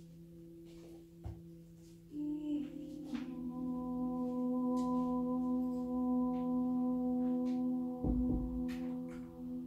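Soft relaxation music of overlapping, sustained drone tones. A deeper tone swells in about two seconds in and holds. There is a short low thump near the end.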